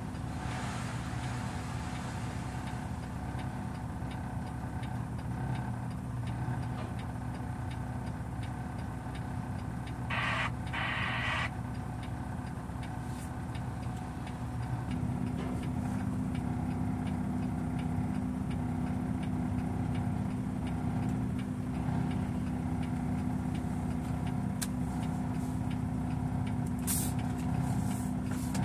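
Peterbilt dump truck's diesel engine idling, heard from inside the cab. A short air hiss comes about ten seconds in, and the engine note grows louder about halfway through as the truck pulls ahead.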